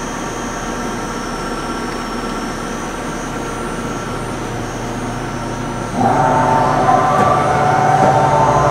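Okuma & Howa Millac 561VA CNC vertical machining center running its program with a steady hum. About six seconds in, a louder whine with steady tones joins and lasts about three seconds.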